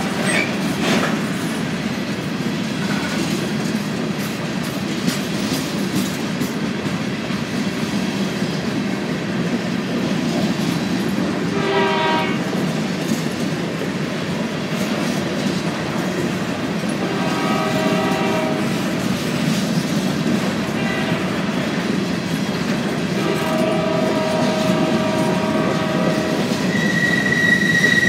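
Empty coal hopper cars rolling past with a steady rumble and clatter of wheels on the rails. Horn chords from the train's lead locomotives sound from down the line three times. A high steady wheel squeal starts near the end.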